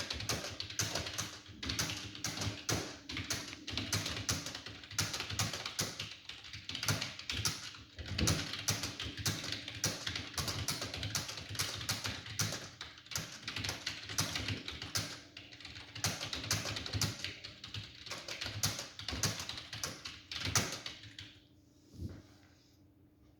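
Fast typing on a computer keyboard: a rapid, steady stream of key clicks that stops about 21 seconds in, after a few last keystrokes.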